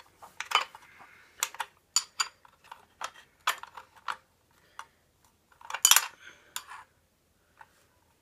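Bosch CS10 circular saw being handled for a blade change: a string of sharp clicks and metallic clinks from its parts, with a louder cluster of knocks about six seconds in.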